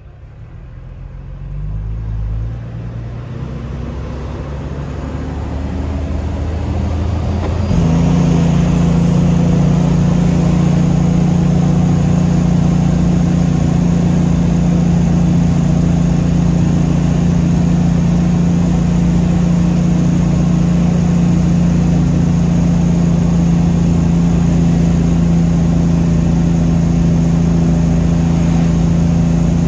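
Old truck's engine, heard from inside the cab, pulling away with its pitch climbing in steps over the first eight seconds. It then jumps to a loud, steady drone with a thin high whine and holds there.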